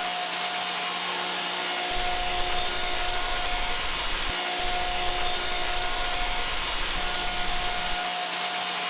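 Wood-processing machinery on an engineered-lumber line running steadily: an even whirring noise with a steady whine that drops out briefly and returns a couple of times.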